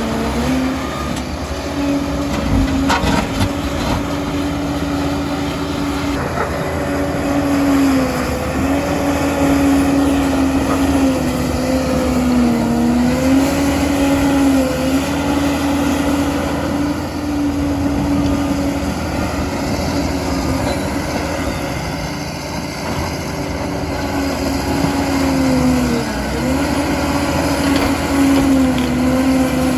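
Liebherr 746 crawler dozer's diesel engine and drive running steadily under work. The pitch sags briefly a few times as the machine takes load, and there are a couple of sharp knocks about three seconds in.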